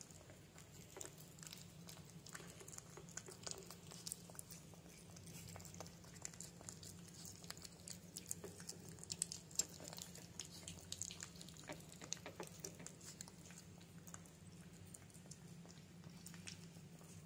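Puppies eating soft mashed food off a plate: faint, irregular small chewing and mouth clicks, busiest in the middle, over a low steady hum.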